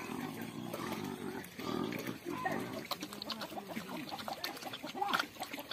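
Domestic pig grunting while it eats slop from a trough, with wet slurping and chomping clicks from about three seconds in.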